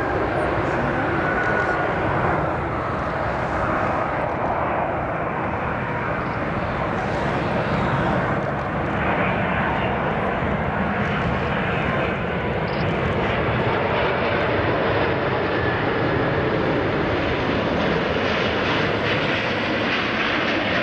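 Airbus A380-841's four Rolls-Royce Trent 900 turbofans at approach power, a steady jet engine roar with a faint whine as the airliner passes low overhead on final approach, growing slightly louder near the end.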